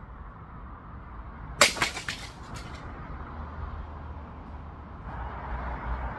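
A live-blade Japanese sword cutting through a target on a stand in one sharp crack about a second and a half in, followed by a few lighter knocks over the next second.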